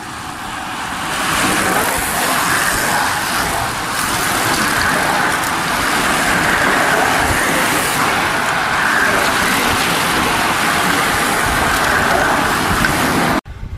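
A long bunch of racing bicycles passing close by: a steady whooshing hiss of tyres on tarmac that builds over the first second or so as the riders arrive, then cuts off suddenly near the end.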